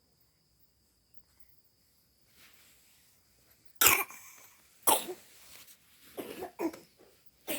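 A young child coughing while sleeping restlessly with a cough: two sharp coughs about a second apart, then a few weaker coughs near the end.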